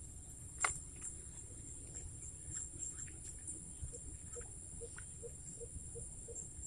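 Steady high insect drone, with a single sharp click a little over half a second in and scattered faint ticks. Near the end comes a run of short, faint low pips, about two or three a second.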